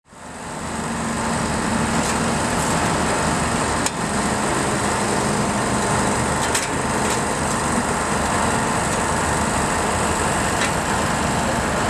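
Excavator engine running steadily at a construction site, with a few sharp knocks scattered through. The sound fades in at the start.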